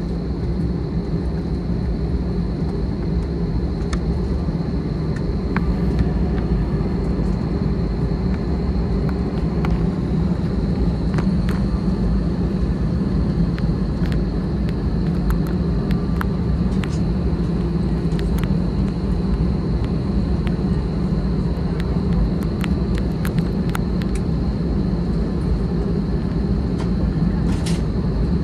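Steady engine and airflow noise of an Airbus A319 jet heard from inside the cabin, with a thin steady high whine and scattered light clicks and rattles. It grows slightly louder a few seconds in and then holds.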